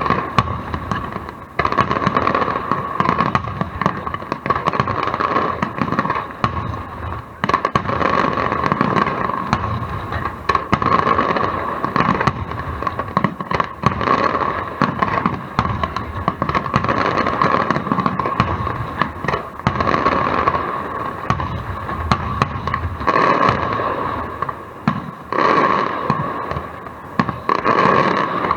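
Fireworks display going off in a dense, almost continuous barrage of bangs and crackles, with only brief lulls.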